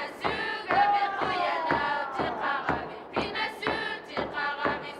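Rhythmic chanting by several voices, with sharp pulsed accents about twice a second and a sliding held note about a second in.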